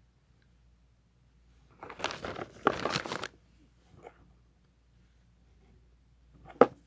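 Handling noise from unboxing a new phone: a burst of rustling and clicking about two seconds in that lasts about a second and a half, a small tap at about four seconds, and one sharp knock near the end.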